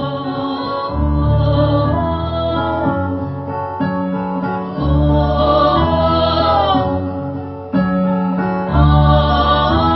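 A band playing a song live: voices singing over sustained accompanying chords with low notes that change every second or two.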